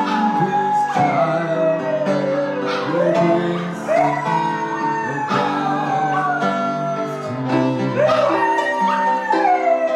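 A husky-malamute howling along to keyboard chords, in long slow howls that each slide downward in pitch, one starting about every four seconds, over steady held piano chords.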